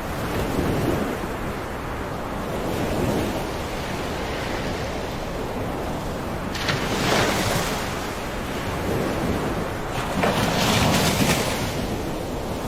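Floodwater rushing steadily, with louder surges about six and ten seconds in.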